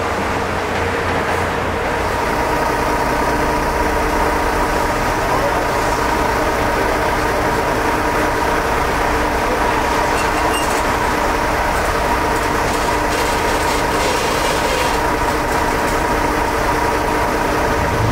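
A large engine running steadily without revving, with a steady hum on top.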